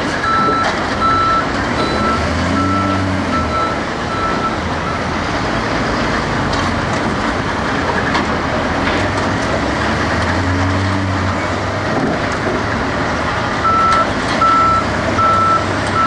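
Kalmar RTD1623 log stacker working: its diesel engine running steadily, with a reversing alarm beeping in even pulses for the first few seconds and again near the end.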